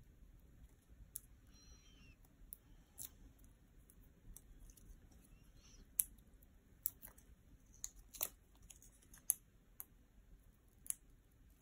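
Faint, irregular clicks and crackles of paper being handled as adhesive foam pads have their backing peeled and are pressed onto a small card label, a few sharper snaps standing out.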